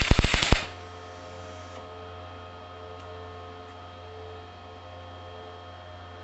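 A quick run of about half a dozen sharp clattering knocks in the first half second, then a steady electric hum with several held tones.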